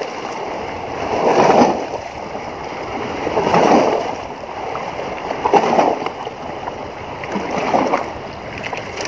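Small waves washing and splashing against shore rocks, surging about every two seconds over a steady wash of water.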